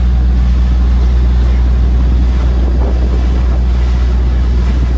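A boat's engine running steadily under way, a constant low drone, mixed with water rushing past and wind on the microphone.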